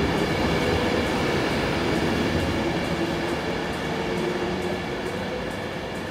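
Class 390 Pendolino electric train running along the platform as it slows to stop: a steady rumble of wheels on rail with several held whining tones, fading gradually as the train moves away.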